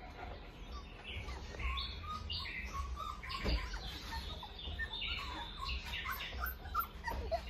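Young Australian Shepherd puppies squeaking and whimpering in many short, high squeaks, with a single soft knock about halfway through.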